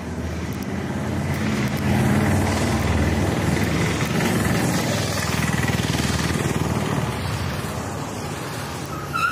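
Engine and road noise heard from a moving vehicle, rising about two seconds in and then holding steady, with a brief high tone near the end.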